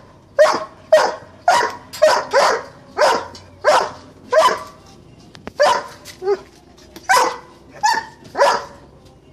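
Doberman barking repeatedly: about a dozen sharp barks at one or two a second, some in quick pairs, with a short pause about halfway through.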